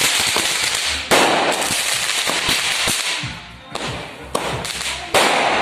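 Diwali firecrackers going off: a sudden loud blast about a second in and another near the end, each trailing a long fading hiss, with smaller cracks in between.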